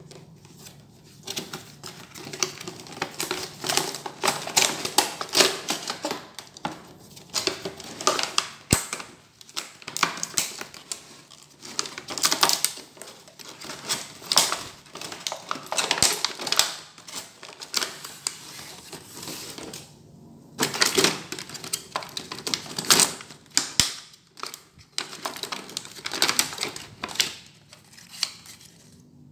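Hard plastic of a toy jigsaw being handled, clicking and clattering in irregular rapid clusters with short pauses between them.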